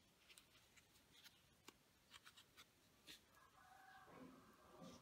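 Faint scattered ticks and rustles of a metal crochet hook drawing doubled Alize Diva yarn through the stitched edge of a shoe insole. Near the end, a faint pitched sound from further off lasts about a second and a half.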